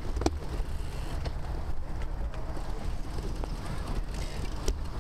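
Wind buffeting a bicycle-mounted camera's microphone, with road rumble, as a group of road cyclists slows to a stop. A few sharp clicks and knocks from the bikes, the loudest just after the start and near the end.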